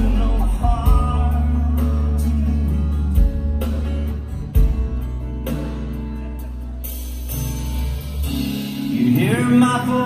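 Live band playing a slow song: a male vocalist singing over acoustic guitar and electric bass, the bass holding long deep notes. The voice drops out in the middle and comes back in near the end.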